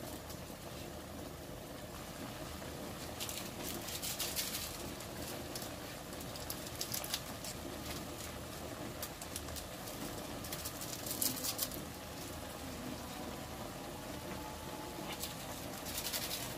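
Water boiling in a nonstick pan around blocks of instant noodles: a steady bubbling, with a few short bursts of crackly popping.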